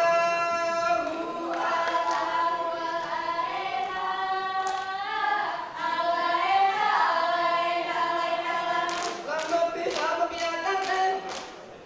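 A group of female dancers singing together in unison, unaccompanied by any instrument, as the song for an Acehnese Rampai Aceh dance. A few sharp claps come near the end.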